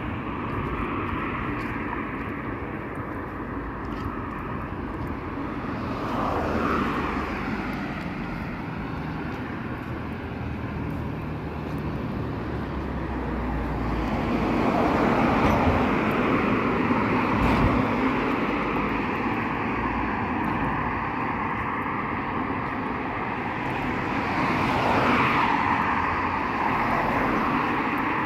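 City street traffic: a steady hum of road traffic, with cars passing close by about three times, each swelling louder and dropping in pitch as it goes past.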